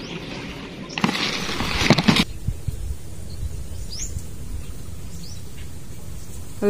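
Steady outdoor background noise with a loud burst of rustling noise lasting about a second, starting a second in. Then a single short rising bird chirp comes near the middle.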